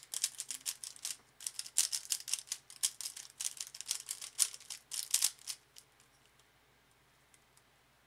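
DaYan ZhanChi 3x3 speedcube being turned quickly by hand, plastic layers making a fast run of clicks and clacks while it is scrambled. The turning stops about five and a half seconds in.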